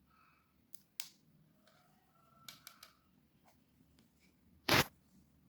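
A few light clicks and taps, like a circuit board and test leads being handled, then one louder, sharp knock near the end. No relay ticking is evident: the relay is not switching.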